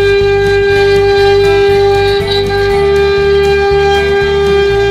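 CNC router spindle running at a steady high speed and whining at one constant pitch as its carving bit cuts into a wooden door panel. Beneath the whine, lower tones shift in short steps.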